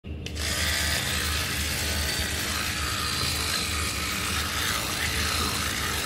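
Oral-B oscillating-rotating electric toothbrush running during tooth brushing: a steady motor buzz with the bristles scrubbing against the teeth and a low hum that pulses unevenly.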